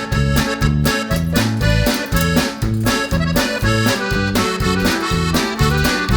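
Upbeat background music led by an accordion over a bouncing bass line with a steady beat.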